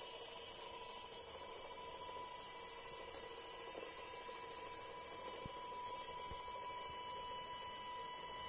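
Small DC motor of a home-built LEGO-compatible monorail engine, run on a 9 V battery, running steadily with a thin high whine over a hiss. A few faint clicks come in the second half.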